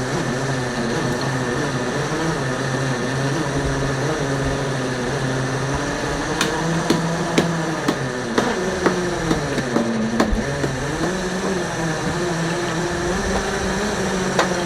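Boat engine running steadily, its pitch wandering up and down, with a run of sharp knocks in the middle.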